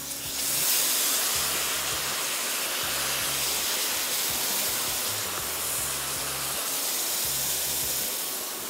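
Sweet and sour sauce and fried fish poured onto a preheated cast-iron sizzler plate, giving a loud, steady sizzling hiss with steam that builds within the first second and holds.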